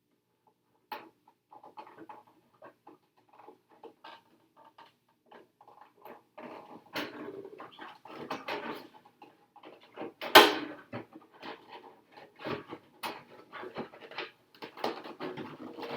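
Small clicks, taps and rustles of sticker sheets and hard plastic RC truck body parts being handled on a workbench. The handling gets busier about six seconds in, with one louder knock a few seconds later.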